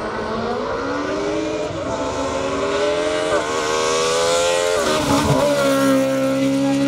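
Race car engine under full throttle climbing through the gears, its pitch rising and then dropping sharply at upshifts about three and five seconds in, then held steady at high revs.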